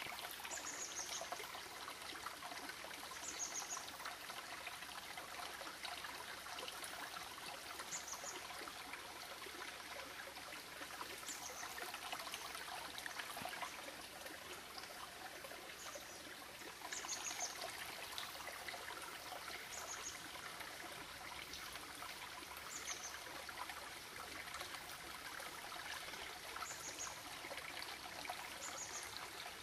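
Shallow rocky creek flowing over stones: a steady wash of running water, with short high chirps every few seconds.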